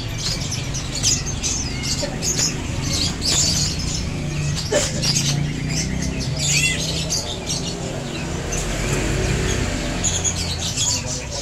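A crowd of young sunbirds chirping and twittering together: many short, high chirps overlapping without pause, some sliding down in pitch.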